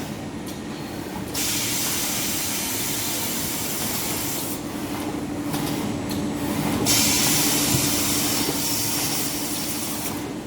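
Automatic maxi roll paper band saw cutting machine running: a steady motor hum, with two long spells of hissing that switch on about a second and a half in and again about seven seconds in.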